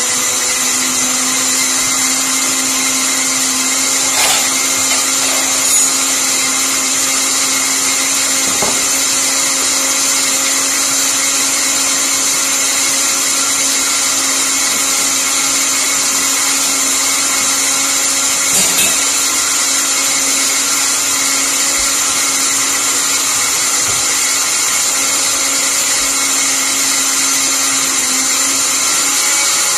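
Electric blender running at a steady speed, pureeing cooked chiles and tomatoes into a salsa, a constant motor whine with a few faint knocks.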